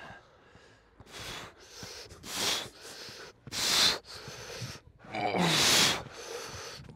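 A man breathing hard in short, sharp breaths, about one a second, with a longer, strained breath carrying some voice about five seconds in.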